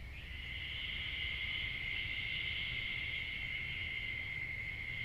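Night insects, crickets by their sound, trilling in one steady, unbroken high-pitched chorus.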